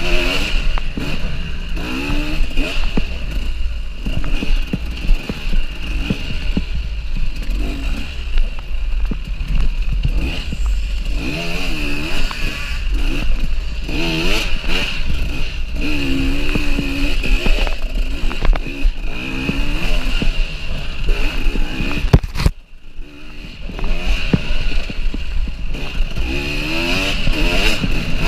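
KTM EXC 300 two-stroke enduro engine revving hard, its pitch rising and falling constantly with the throttle as the bike is ridden over a dirt course. About 23 seconds in, the throttle is shut and the engine falls almost silent for a moment before revving up again.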